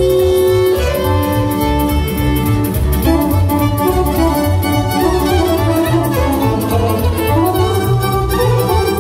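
Live Romanian party music (muzică de petrecere) in an instrumental passage: a violin carries the melody over a steady bass-and-drum beat.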